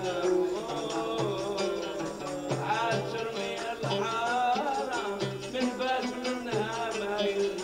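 A man singing a Moroccan Jewish devotional song (piyyut) into a microphone, accompanied by ouds and a hand drum, with a low drumbeat a little over a second apart.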